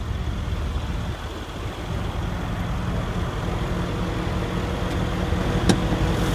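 Mercedes CLS63 AMG's 5.5-litre bi-turbo V8 idling steadily, with a single sharp click about five and a half seconds in.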